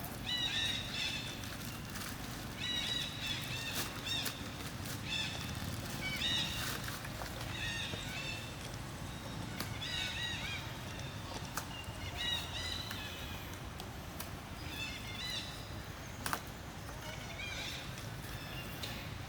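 Monkey giving short, high-pitched squealing calls, repeated in clusters every second or two.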